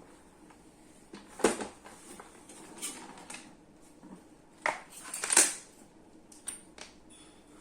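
Clatter of hard objects being handled: a handful of knocks and clinks, the loudest about one and a half and five and a half seconds in, then a few light ticks near the end.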